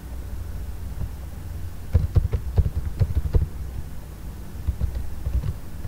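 Computer keyboard typing: a quick run of about eight key clicks about two seconds in, then a few more near the end, over a steady low hum.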